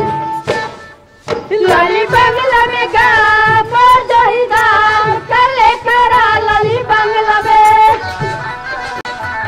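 Chhattisgarhi folk song: a high singing voice carrying an ornamented, wavering melody over instrumental accompaniment. The music drops briefly about a second in; the voice stops near the end while the accompaniment carries on.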